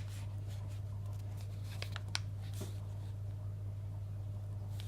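A steady low hum, with a few faint clicks from a pen-cap handcuff key being handled, about two seconds in and again near the end.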